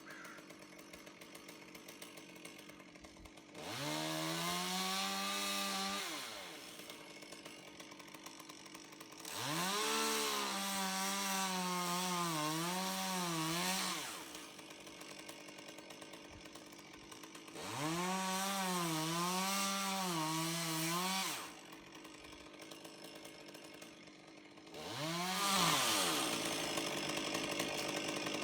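Two-stroke chainsaw revved up four times for a few seconds each, dropping back to idle in between, its pitch wavering during the longer bursts.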